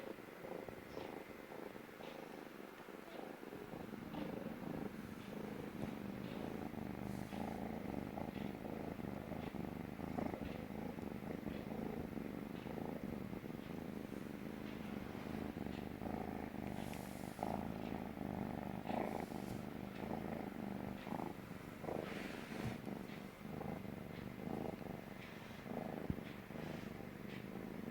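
Kitten purring loudly and steadily on a lap, which the owner takes as a sign he feels safe, with a few faint rustles over it.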